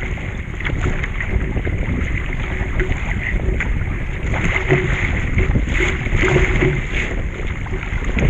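Water splashing and lapping around a surf ski kayak, with scattered irregular splashes over a steady wind rumble on the GoPro microphone.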